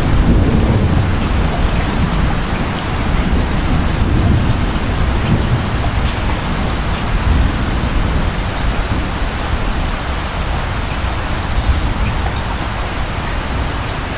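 Steady rain with a low rumble of distant thunder that is strongest over the first few seconds and slowly fades.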